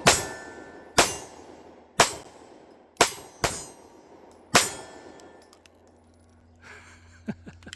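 Six pistol shots fired about a second apart, the last few quicker, each with a clang and ringing from a steel target being hit. A few faint clicks follow near the end.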